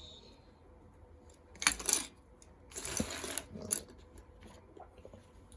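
Small plastic Lego pieces clattering and clinking, in two short bursts about a second apart.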